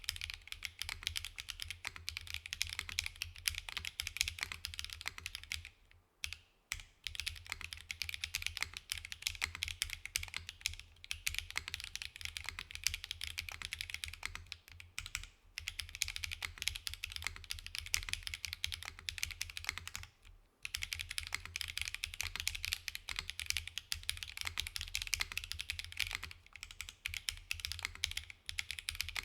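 Continuous fast typing on a gasket-mounted Sagittarius 70 mechanical keyboard with K01 switches, GMK Black & Gold keycaps and a full aluminium plate, with no foam dampening. It is a dense stream of keystroke clicks, broken by three short pauses: about a fifth of the way in, about halfway, and about two-thirds of the way through.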